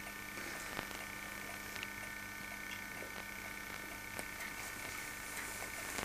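Steady electrical hum and hiss of an old home-video tape recording, with a few faint clicks.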